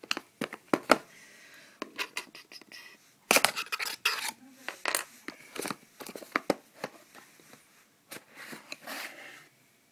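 A smartphone's retail box being opened by hand: irregular clicks, scraping and tearing of cardboard and plastic packaging, busiest about three to four seconds in.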